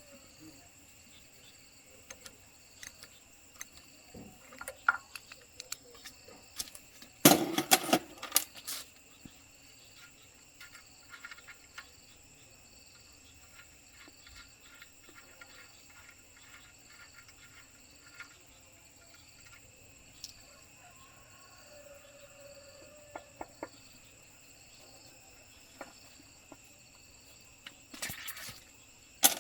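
Scattered clicks and clinks of metal tools and parts being handled, with a loud clatter about seven seconds in and another near the end. Insects trill steadily and high-pitched in the background.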